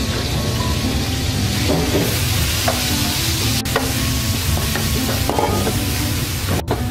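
Dried red chilli and minced garlic sizzling in hot oil in a large pan, stirred with a spatula that scrapes and clicks against the pan.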